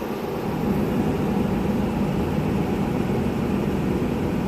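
2006 Ford Expedition's freshly replaced 5.4-litre V8 idling steadily, really smooth, with no check engine light on.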